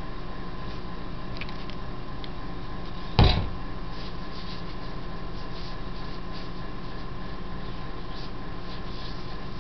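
Faint rustling of moist soil being rolled between bare hands into a thread for a plastic-limit check, over a steady electrical hum with a constant tone. A single loud knock about three seconds in.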